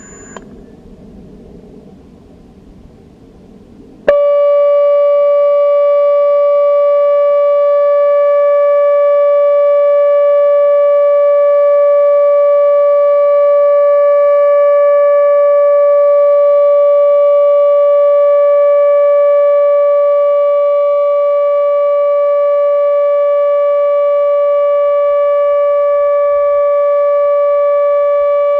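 ATI HPSS-32 electronic siren sounding its steady alert tone, the test signal of a nuclear power plant's warning system. After about four seconds of low background noise it switches on abruptly at full pitch and holds a single loud, unwavering note with overtones.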